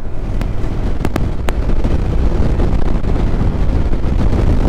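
Wind blowing hard on the microphone over the low rumble of a Honda NC750X motorcycle riding along a country road, with a few sharp clicks between half a second and a second and a half in.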